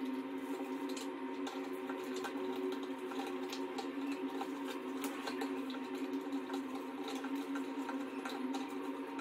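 Small irregular clicks and taps of plastic toilet-seat hinge fittings being handled and fitted, over a steady hum.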